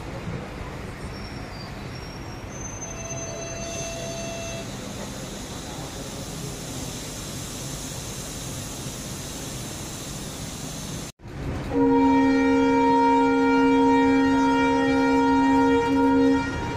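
Indian Railways passenger train running along the track with a steady rumble. After a short break about eleven seconds in, a train horn sounds one long, loud blast of about four and a half seconds and cuts off just before the end.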